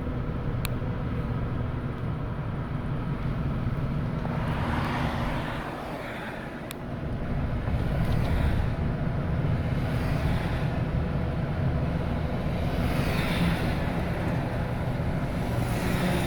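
Road traffic: heavy trucks driving past with a steady low engine rumble and tyre noise, swelling as vehicles go by about four seconds in and again from about eight seconds on.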